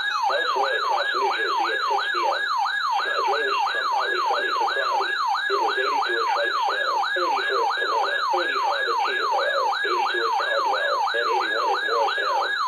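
Weather radio alert alarm sounding: a loud electronic siren tone sweeping up and down about two and a half times a second, signalling an incoming warning.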